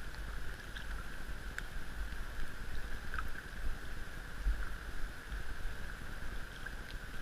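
Quiet water ambience around a kayak on calm water: a steady low rumble and a faint even hiss of moving water, with a few small ticks and knocks.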